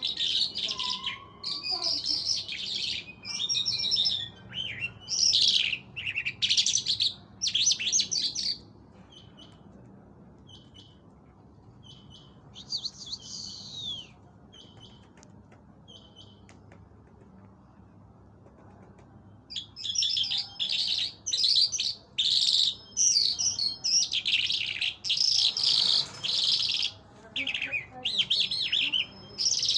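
Small songbird singing phrases of rapid, high chirps and trills. It goes mostly quiet for about ten seconds in the middle, with only a few soft notes and one short phrase, then sings loudly again.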